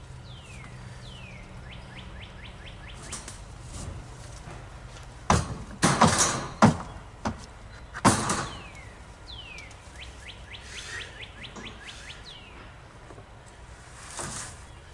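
Wooden boards knocking and clattering as they are handled, a cluster of loud knocks between about five and eight and a half seconds in. A songbird repeats the same phrase twice, a falling whistle followed by a quick run of notes.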